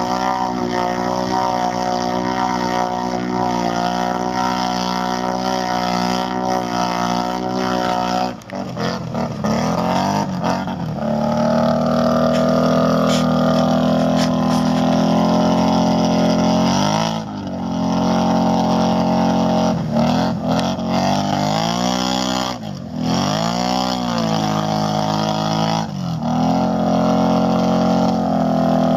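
ATV engine held at high revs while the quad is stuck in deep mud, its wheels spinning and slinging mud. The revs drop sharply about eight seconds in, climb back high, then dip and rise again several times as the throttle is worked.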